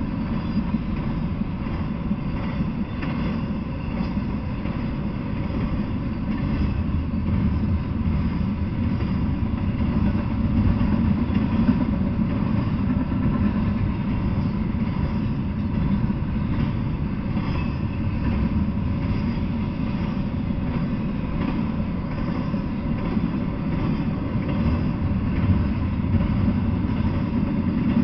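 Double-stack intermodal freight train rolling past at speed: a steady, unbroken rumble of steel wheels on rail, heaviest in the low end.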